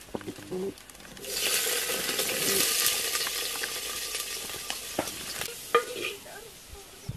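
River snails tipped into a hot clay pot, sizzling loudly about a second in, with the sizzle slowly dying down. A few sharp clicks of shells or pot near the end.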